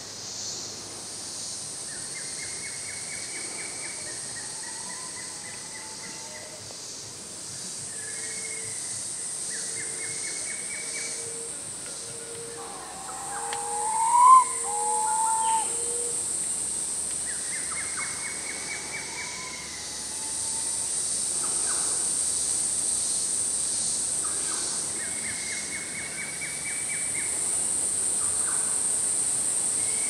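Tropical rainforest ambience: a steady high-pitched insect drone, with birds giving repeated short trilling calls and a low note repeated about once a second for the first half. About halfway through comes the loudest sound, a two-note whistled bird call whose first note rises.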